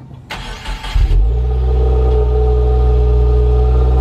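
Cold start of a 2018 Subaru WRX's turbocharged flat-four, heard at the exhaust tips: the starter cranks for under a second, the engine catches with a brief flare about a second in, then settles into a steady idle.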